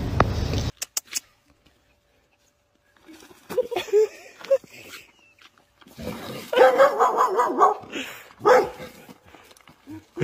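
A puppy barking repeatedly in short yaps, in a few bursts spread over several seconds.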